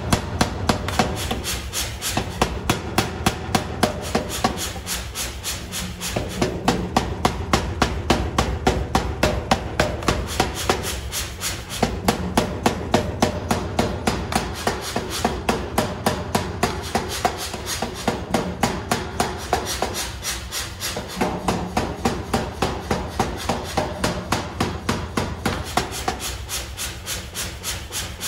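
Power hammer pounding a block of white-hot steel, rapid even blows about five a second, in runs of several seconds broken by short pauses. The steel is being forged into the blank for a broad hewing axe.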